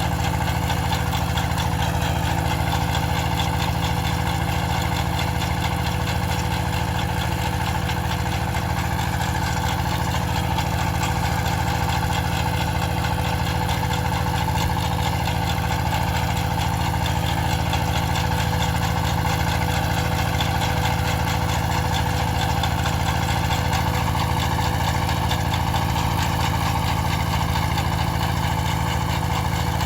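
Engine of a farm machine running steadily, with an even, unchanging drone.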